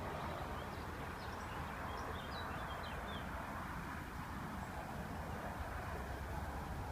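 Narrowboat engine running steadily. A few short bird chirps come in the first three seconds.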